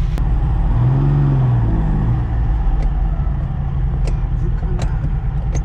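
Ferrari Dino 246's V6 engine idling steadily, heard from inside the cabin. A short hum rises and falls in pitch about a second in, and a few light clicks come later.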